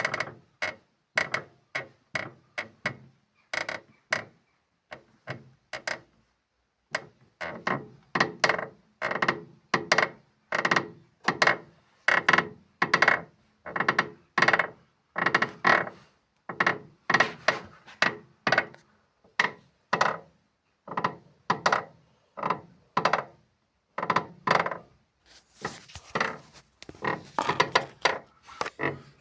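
Volkswagen Jetta's front left suspension squeaking over and over, a short creak about once or twice a second, with a pause of a couple of seconds about five seconds in.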